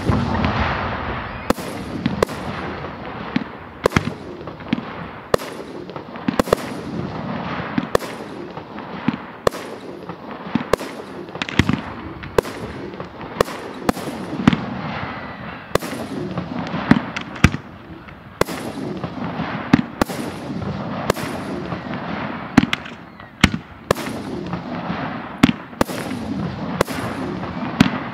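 Professional aerial fireworks display: 3- to 5-inch shells and F3 fireworks bursting in rapid succession, a sharp bang about once or twice a second over a continuous rumble of the show.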